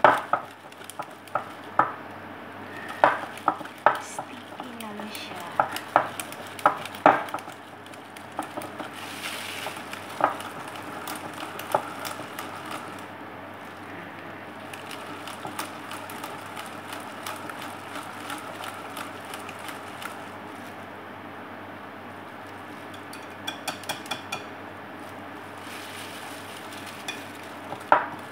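A utensil stirring thick cake-donut batter in a glass bowl: a steady wet swishing, with repeated sharp clicks of the utensil knocking against the glass in the first several seconds and again near the end.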